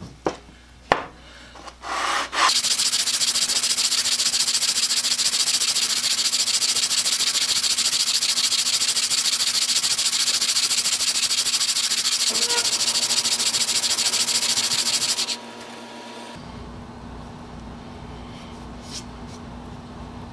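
The wooden sole of an old transitional hand plane being rubbed back and forth on 80-grit sandpaper to flatten it: a steady, even scraping that runs for about thirteen seconds and then stops. A couple of light knocks come just before it starts.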